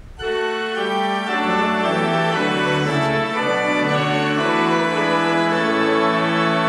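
Organ playing slow, sustained chords, the held notes shifting from one chord to the next; it comes in abruptly right at the start.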